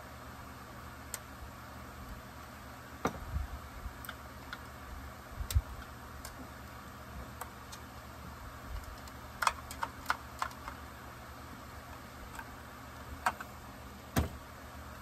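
Scattered light clicks and taps of a hand tool and plastic and metal parts as a Husqvarna 562XP Mark II chainsaw is taken apart, with a quick run of clicks a little past the middle, over a steady background hiss.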